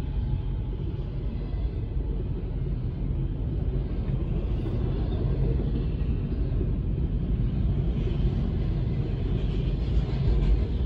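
Double-stack intermodal freight train's container well cars rolling past close by: a steady low rumble of steel wheels on the rails.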